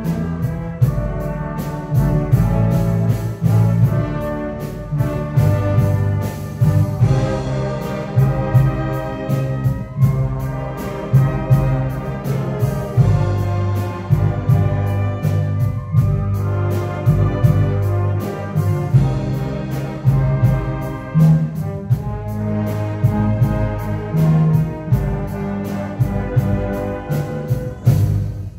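Wind band playing live: brass including tuba carrying sustained chords over a steady beat.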